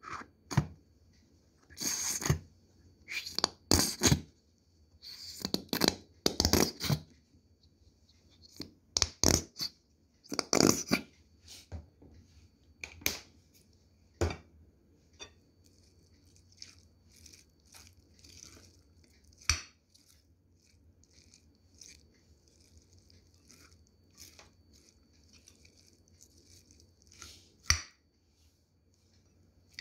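Coleslaw being mixed in a glass bowl: a utensil turns shredded cabbage and carrot through mayonnaise with moist crunching and scraping, and sharp knocks against the bowl. The mixing is busy through the first half, then turns quieter with only a few single knocks.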